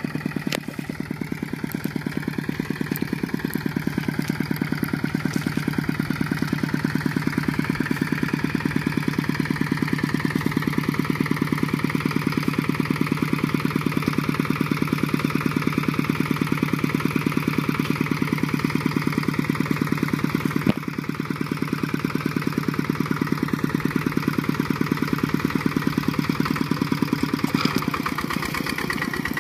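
Kubota RT120 single-cylinder diesel engine of a two-wheel walking tractor running steadily with an even, rapid firing beat, working under load as its cage wheels pull the tractor through paddy mud.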